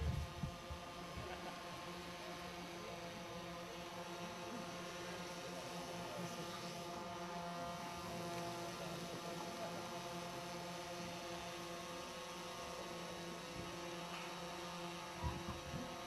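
A steady hum of several held tones, with a few low thumps right at the start and again near the end.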